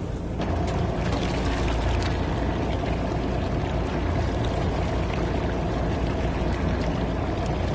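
Fishing boat's engine running steadily with water washing against the hull; a steady hum joins about half a second in.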